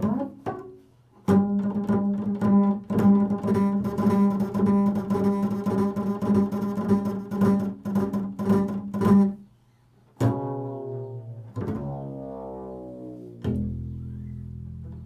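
Improvised solo string-instrument music: a low held note with rapid repeated strokes or plucks over it. After a short break about ten seconds in, notes slide up and down in pitch, ending on a low held tone.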